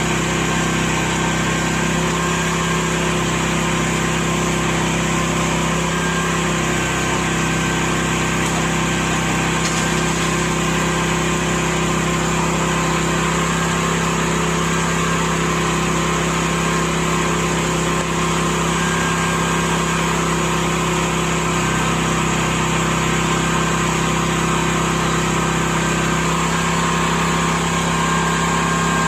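Honeybees buzzing en masse at a hive: a dense, steady hum that holds unchanged throughout.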